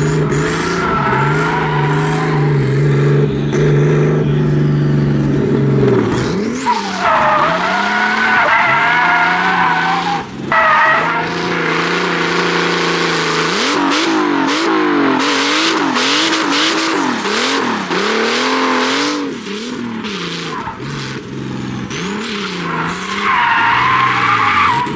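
Turbocharged drift car's engine revving hard, its pitch climbing and dropping in quick bursts of throttle, with tyres squealing as the car slides sideways in a drift. The squeal comes in two stretches, one in the middle and one near the end.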